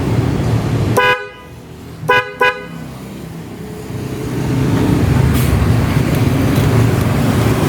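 Newly fitted Denso snail horns on a motor scooter giving three short toots, a test of the new relay wiring: one toot about a second in, then two quick ones a second later. A steady low rumbling noise sits underneath, louder again from about four seconds in.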